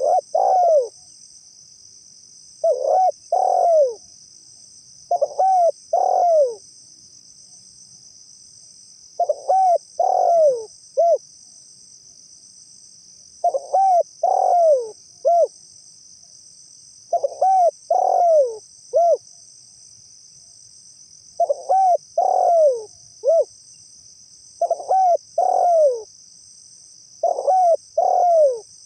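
Spotted dove cooing: about nine phrases of two or three falling coos each, repeated every three to four seconds, the later phrases ending in a short third note.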